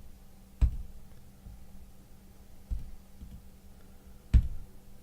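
Three sharp computer-mouse clicks, each with a dull knock on the desk. They come about half a second in, near the middle, and loudest near the end, over a faint steady hum.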